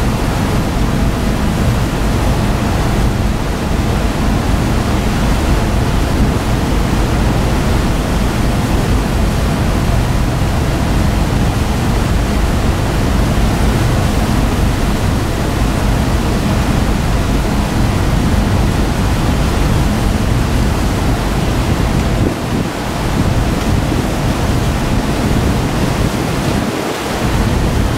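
Steady wind buffeting the microphone on the open deck of a moving ferry, with the rush of water along the hull beneath it. There are brief lulls in the gusting twice near the end.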